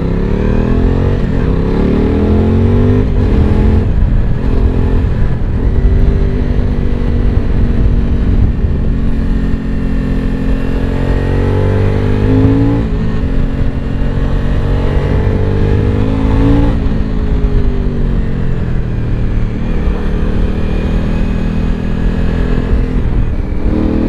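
Suzuki V-Strom 1000 XT's V-twin engine with an Akrapovic exhaust, heard from the rider's seat as the bike accelerates. The revs climb and drop sharply with upshifts about 13 and 17 seconds in, then settle into steady cruising at low revs. Wind rush runs underneath.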